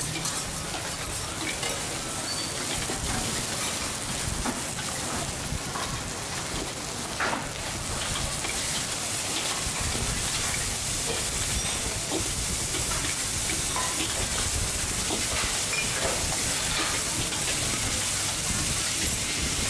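Flat noodles with bean sprouts and chives sizzling in a large wok as two metal ladles stir and toss them: a steady frying hiss with scattered scrapes and clicks of metal on the wok.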